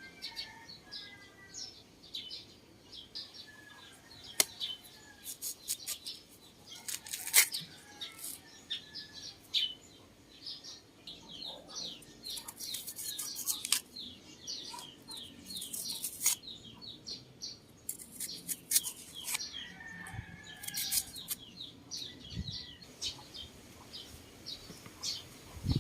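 Small birds chirping repeatedly in quick short calls, with scattered sharp crunching clicks of jicama (singkamas) being eaten.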